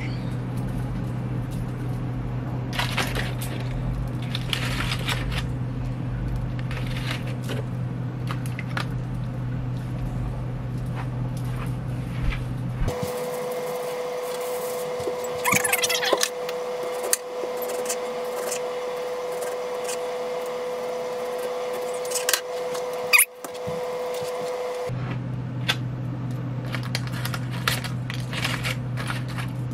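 Aluminium foil crinkling and rustling in scattered short bursts as a foil pack is pulled open on a metal baking pan, over a steady low hum. Through the middle stretch the low hum gives way to a steady higher-pitched hum.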